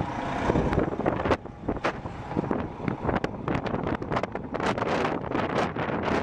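Strong gusty wind buffeting the microphone, with irregular blasts rising and falling in loudness.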